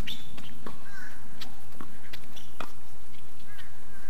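Scattered sharp taps of a tennis ball bouncing on a hard court, with a couple of short chirping sounds.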